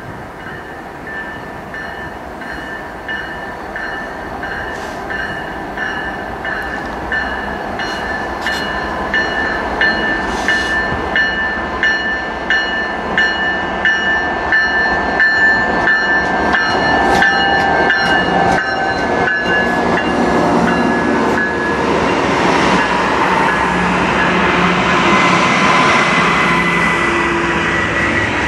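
Diesel-led freight train approaching and passing, growing steadily louder. A bell rings about twice a second through the first two-thirds while the locomotives come closer; then the locomotives go by and the rumble of the freight cars on the rails takes over, with a thin wheel squeal near the end.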